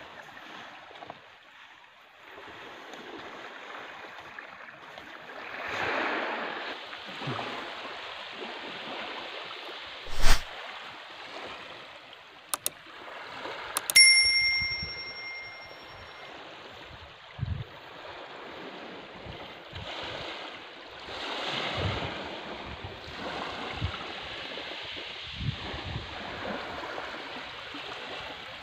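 Wind and lapping surf on a beach, with a sharp click about ten seconds in and a bright bell ding about fourteen seconds in, the sound effect of a subscribe-button animation.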